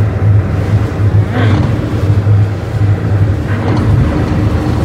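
A 56 Carver Voyager motor yacht's inboard engines running at low speed in gear, a steady, pulsing low rumble as the boat eases out of its slip.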